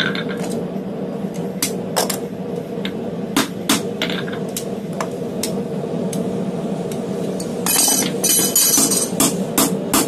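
Hand hammer striking a punch-like top tool held on a red-hot D2 steel bar, in sharp metallic blows: a few spaced strikes, then a quick run of about three blows a second near the end. A second or so of harsh, rough noise comes just before the final run, over a steady low hum.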